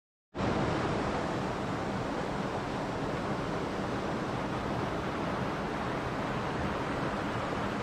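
Mountain stream rushing over rocks: a steady rush of water that starts suddenly about a third of a second in, after silence.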